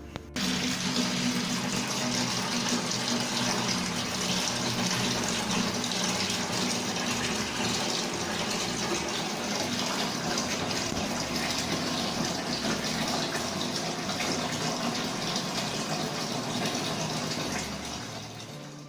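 Water running steadily from a tap, starting suddenly and fading away near the end.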